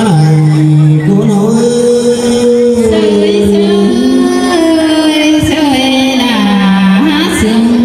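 A man sings into a microphone over amplified music, holding long notes that slide from one pitch to the next.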